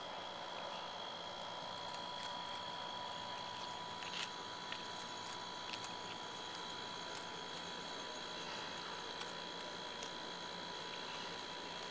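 A raccoon eating dry dog food, with a few faint, scattered clicks and crunches. Under them is a steady hiss and a high steady whine.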